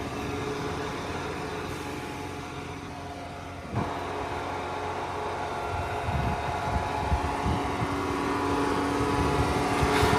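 John Deere 8RX 410 tracked tractor's diesel engine idling with a steady hum. There is a thump about four seconds in, after which the hum is louder.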